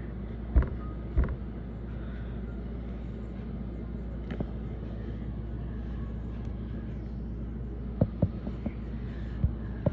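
A steady low hum, with two sharp knocks about half a second and a second in, and several more clicks and knocks near the end.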